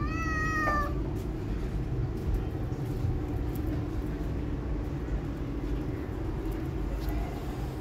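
A tabby kitten meows once at the very start, a short high call rising at its onset and then held. After it there is only a steady low rumble.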